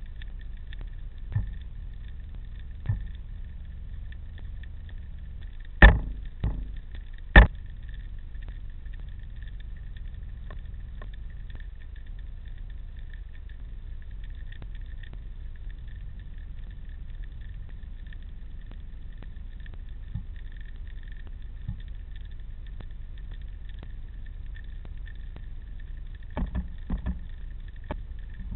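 Underwater ambience picked up through a diving camera: a steady low rumble with a faint hiss, broken by a few sharp knocks. The two loudest knocks come about six and seven seconds in, and a quick cluster comes near the end.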